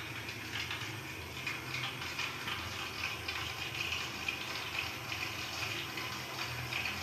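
Water running steadily from a hose: a continuous rushing hiss with a low hum underneath.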